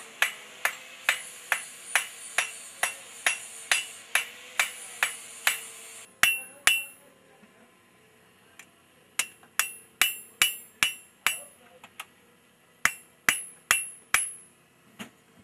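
Hand hammer striking a red-hot railroad-spike tomahawk head on an anvil while forging it, with a bright ring on each blow. First comes a steady run of blows about two a second, then shorter groups of blows with pauses between.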